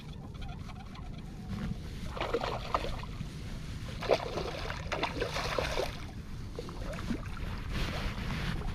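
Water splashing in short bursts, about three times, as a hooked pink salmon thrashes at the surface during the fight, over a steady low rumble.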